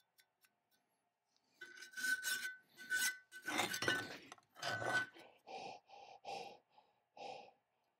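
Short rasping, scraping strokes of metal on the weld-repaired cast iron vise casting, about ten in a row, with the casting ringing faintly on the heavier early strokes. The later strokes are shorter and more evenly spaced.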